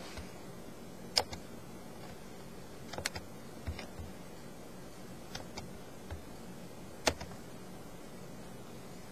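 Scattered sharp clicks and taps from a computer being operated with keys or mouse, about eight in all, the loudest about a second in and about seven seconds in, over a faint steady low hum.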